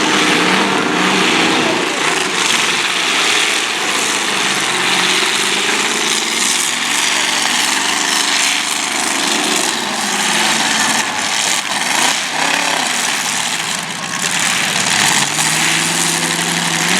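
Demolition derby cars' engines running and revving, their pitch rising and falling in waves over a dense steady roar.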